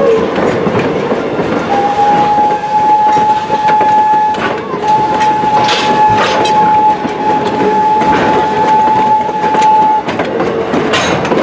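Steam locomotive whistle sounding one steady note in two long blasts, a short one and then one of about five seconds, over the steady rumble and clatter of the moving train.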